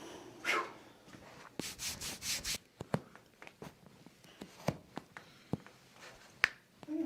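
Hands and body rubbing and rustling on a treatment table during a chiropractic adjustment, then a series of sharp clicks and pops spaced irregularly, the loudest near the end. A short whoosh comes about half a second in.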